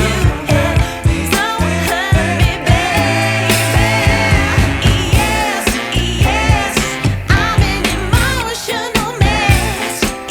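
Background music with a sung vocal line over a steady beat and bass.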